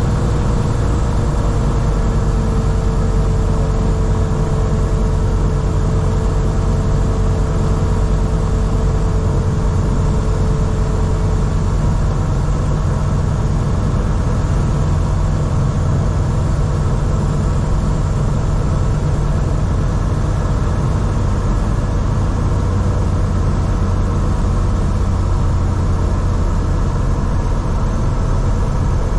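The Grob G109B's four-cylinder Rotax 912 engine and MT constant-speed propeller running steadily on final approach, a loud, even drone heard inside the cockpit. A faint steady whine sits over it for the first ten seconds or so.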